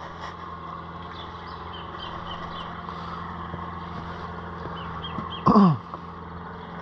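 A steady low mechanical hum, like an engine running, with faint short high chirps over it. About five and a half seconds in, a loud cry drops steeply in pitch.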